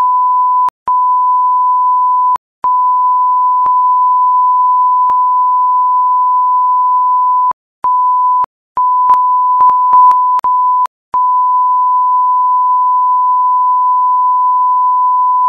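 Censor bleep: a steady, loud, high beep tone blanking out a string of swear words. It is broken by several brief gaps, with faint clicks where it stops and restarts.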